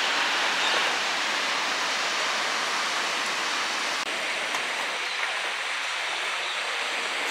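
Steady rush of a waterfall, an even hiss of falling water with no distinct events, briefly dipping about four seconds in.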